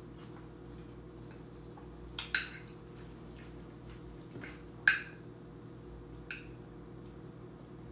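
A metal spoon clinking against a glass plate as food is scooped up: about four sharp clinks with a brief ring, the loudest a little before the middle, over a steady low hum.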